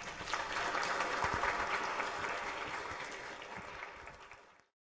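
Audience applause: many people clapping, easing off over the last seconds and then cutting off abruptly near the end.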